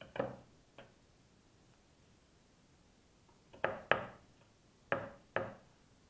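Light knocks of M6 rubber buffer mounts being set down into holes in a film-faced plywood board: two single knocks at the start, then two pairs of sharper knocks in the second half.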